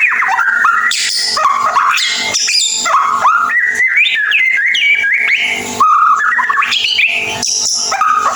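White-rumped shama singing without a break: a rapid, varied run of whistled notes with quick rising and falling slides, broken by short clicks and harsher chattering notes. This is the busy twittering song that keepers call ngeriwik.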